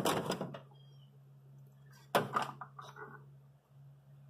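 Two brief clattering knocks about two seconds apart, from hand tools and a work light being handled against the engine, over a steady low hum.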